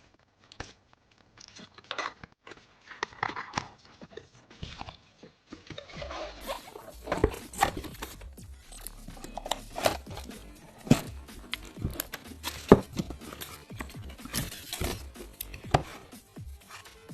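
Hands handling PC parts and their packaging: a run of sharp clicks, taps and knocks with crinkling and tearing of plastic, sparse at first and much busier from about six seconds in.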